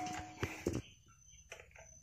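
A few light knocks on a large steel bowl in the first second, with a brief ring from the metal, as chopped vegetables are tipped in from a wooden board; then only a few faint soft taps.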